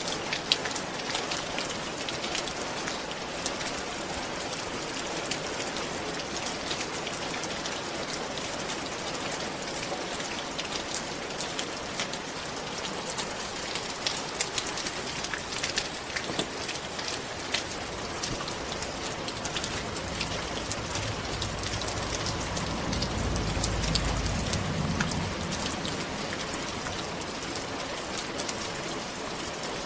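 Steady rain falling on a roof, with many individual drops ticking sharply. In the second half a low rumble swells and fades over several seconds.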